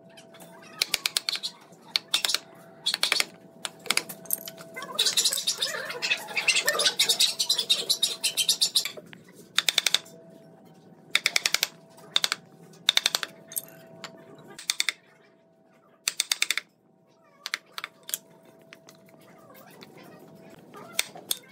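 Wood chisel being driven into a joint in a wooden chair frame, struck in quick bursts of sharp taps, several close together in each burst, with a longer run of tapping in the middle.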